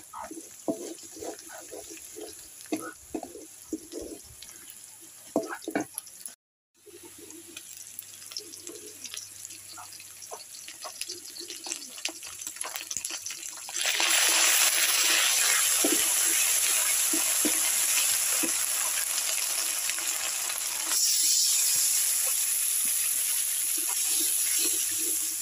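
Onions, green chillies and spice paste frying in hot oil in a metal wok, with a wooden spatula scraping and knocking against the pan. About halfway through, the sizzling turns suddenly much louder and stays loud.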